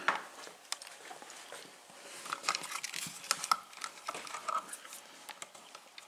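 Scattered small clicks and rustles of hands handling electrical wires and plastic wire nuts in a wall switch box as an old timer switch is disconnected.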